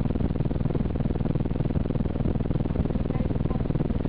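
An engine idling steadily close by: a low, even rumble of rapid pulses.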